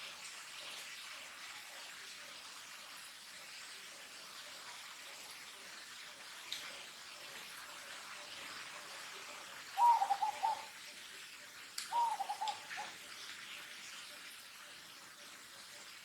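Two short wavering animal calls, about two seconds apart, over a steady faint background hiss.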